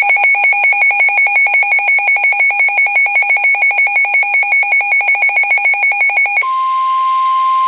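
Weather-radio alert: a loud electronic alarm beeping rapidly, about seven beeps a second, for about six seconds, then switching to one steady tone, the NOAA Weather Radio warning alarm tone that comes before a warning.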